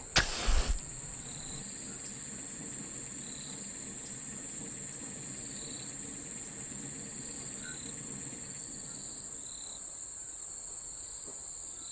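Crickets chirring steadily in a high, continuous trill, with fainter chirps coming and going about every two seconds. A brief soft noise sounds in the first second.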